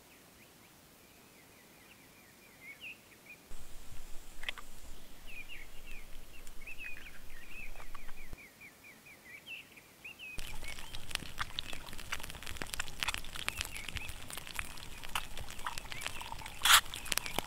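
Birds chirping in short calls. Then, from about ten seconds in, eggs sizzling and spitting in hot fat in a cast iron skillet over a campfire, a dense crackle with a few sharp pops near the end.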